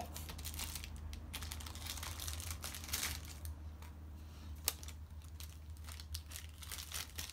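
Crinkly plastic toy wrapper rustling and crackling as small hands unwrap it, with scattered small clicks and one sharper click a little past the middle.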